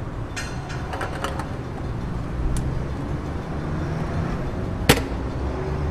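A steady low vehicle rumble, with a few light clicks in the first second and a half and one sharp click near the end.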